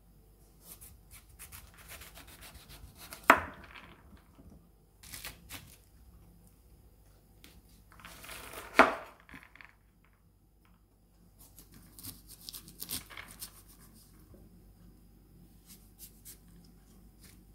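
Chef's knife cutting through green papaya and scraping out its seeds on a bamboo cutting board, with two sharp knocks of the blade meeting the board, one about three seconds in and one near nine seconds.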